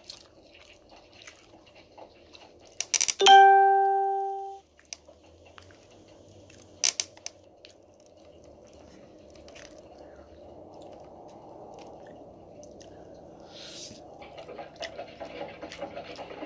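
Eating with a fork from a plate: chewing, with small clicks of the fork on the plate. About three seconds in, a single loud ringing tone sounds for about a second and cuts off suddenly. A low background murmur grows louder toward the end.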